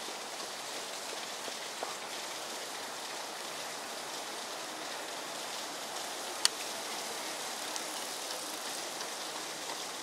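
Steady, even outdoor background hiss with a few faint clicks and one sharp click about six and a half seconds in.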